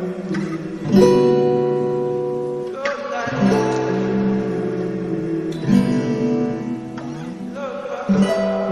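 Music: acoustic guitar chords strummed and left to ring, a new chord struck about every two seconds.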